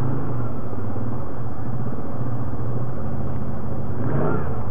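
ATV engine running steadily as the quad rides along a trail.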